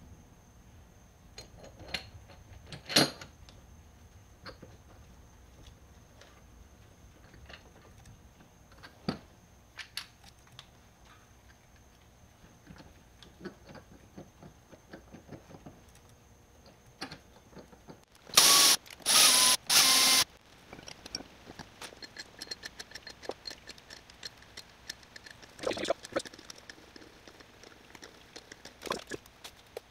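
Metal differential parts and tools being handled on a workbench: scattered clicks, clinks and knocks, with a sharper knock about three seconds in. Midway come three short, loud hissing bursts in quick succession, followed by busier small clicking and rustling.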